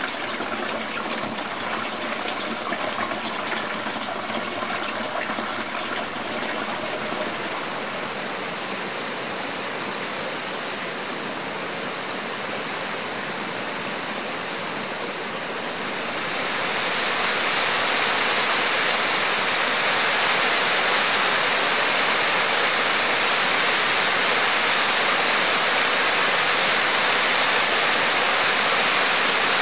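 Hot spring water running: a lighter, uneven flow of water for the first half, then, a little past halfway, the louder, steady rush of a hot spring waterfall pouring down the rock.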